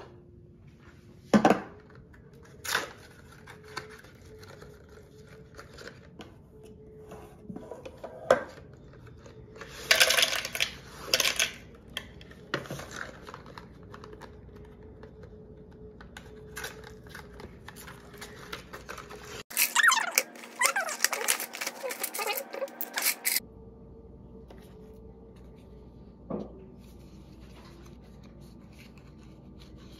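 Cardboard product boxes handled and set down on a stone countertop: scattered taps and knocks, with a few seconds of crinkling, rustling packaging about two-thirds of the way through. A faint steady hum runs underneath.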